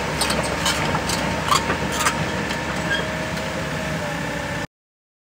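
Caterpillar 317 crawler excavator's diesel engine running while the machine works, with a run of sharp clicks and clanks in the first two seconds. The sound cuts off abruptly near the end.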